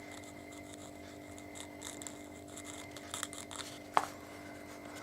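Light rubbing and scraping of glue being applied to a loudspeaker's rubber surround, with one sharp clink that rings briefly about four seconds in, over a steady low hum.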